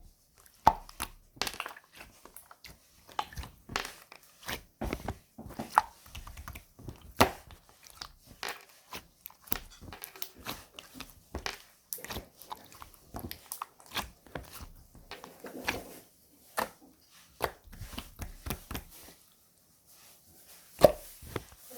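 Hands squeezing and stretching slime: a quick, irregular run of sharp clicks and pops. There is a short lull near the end, then one loud pop.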